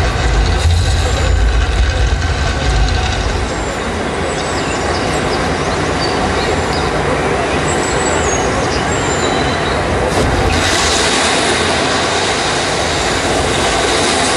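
Sound-effect soundtrack of a projection show playing over loudspeakers: dense noise with a heavy low rumble at first, a few faint high squeaks in the middle, and from about ten seconds in a brighter, steady rushing hiss.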